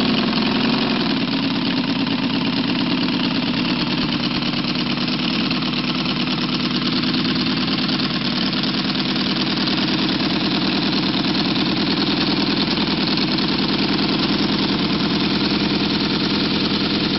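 A 1/3-scale Ardun-headed flathead V8 model engine running steadily, with a fast, even firing pulse.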